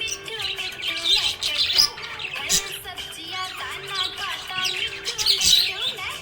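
Budgerigars chirping and warbling in a busy, continuous chatter of quick high twitters and glides.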